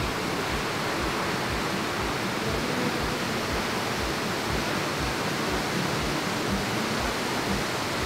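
Waterfall pouring over a rock ledge onto the boulders below: a steady, unbroken rush of falling water.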